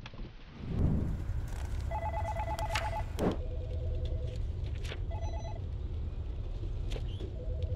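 Electronic desk telephone ringing in short bursts of rapid warbling tones, several rings, over a low steady rumble that starts about a second in; a few sharp clicks between the rings.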